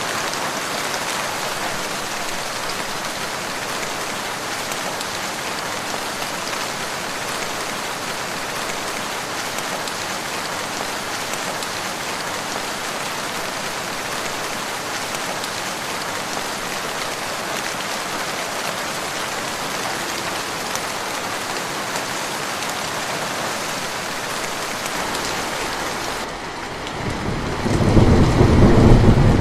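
Steady, even rain falling. Near the end a low rumble of thunder swells up and becomes the loudest sound.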